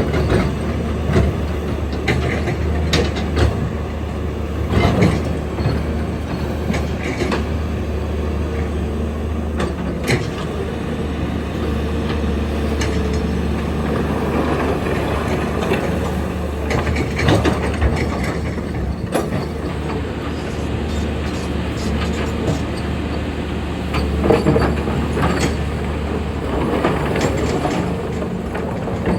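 Large hydraulic excavator's diesel engine running steadily under load while digging, with scattered clanks and knocks from the bucket, rocks and steel parts.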